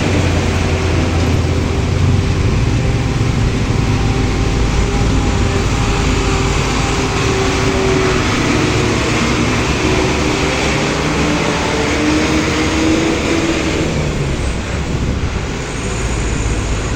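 Road traffic: motor vehicle engines running and passing at close range, one engine's note slowly rising and falling in the middle stretch.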